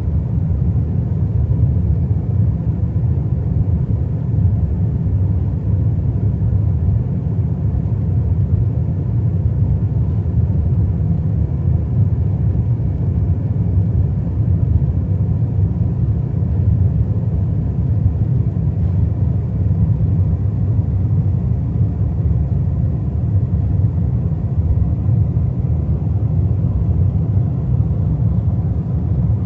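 Steady low rumble of a passenger airliner heard inside the cabin, engine and airflow noise running evenly, with faint steady tones above it.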